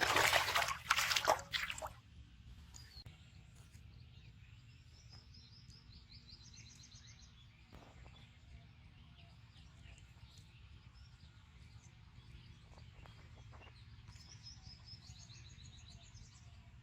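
Small birds chirping in short high trills, twice, over a low steady outdoor rumble. A loud rushing noise fills the first two seconds.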